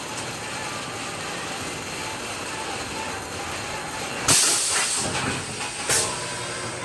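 A loud hiss about four seconds in that tails off within a second, then a second short hiss about two seconds later, over a steady background noise.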